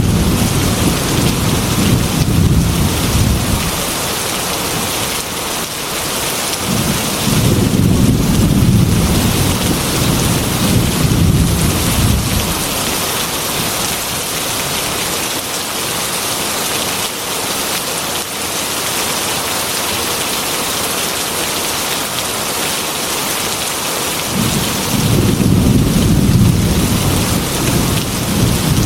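Heavy rain falling steadily, with low thunder rumbling three times: at the start, again several seconds in, and near the end.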